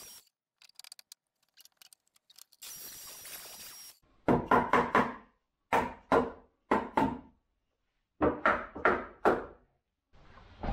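Sharp knocks on wood as a cut wooden piece is knocked into place in the workbench frame: about a dozen knocks, each with a short ring, in four quick runs starting about four seconds in, after some faint handling clicks.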